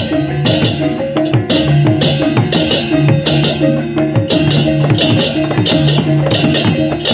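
Balinese baleganjur gamelan playing: rows of cengceng hand cymbals crash in a steady, even pattern over kendang drums and the ringing tones of tuned gongs.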